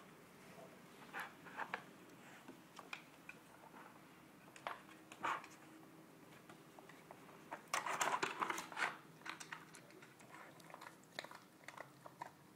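A Cavalier King Charles Spaniel nosing and pawing a plastic Dog Brick treat puzzle: scattered clicks and knocks of the sliding blocks and bone-shaped lids, with a busy run of clattering about eight seconds in, and bouts of chewing on the treats it uncovers.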